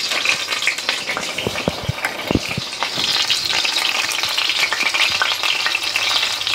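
Top round roast (London broil) searing in hot lard in a black pot, a steady sizzle full of small crackling pops: the reverse-sear browning stage, building a crust on the smoked meat.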